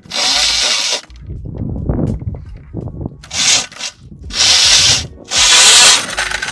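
Saw blade fitted as the rear wheel of a Sur-Ron electric dirt bike, spinning and scraping through the ground in four loud, hissy bursts: one at the start, then three close together in the second half.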